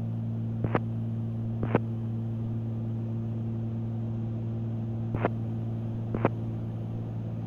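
Cessna 310Q's twin piston engines droning steadily in flight, a constant hum with several steady low tones. Four short sharp clicks cut through it, in two pairs about a second apart.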